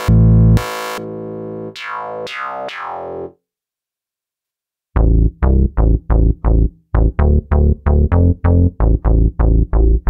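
u-he Diva software synthesizer playing presets: a held synth tone whose brightness sweeps down several times, stopping about three seconds in. After a short silence a deep bass preset plays a repeated run of short staccato notes, about three or four a second.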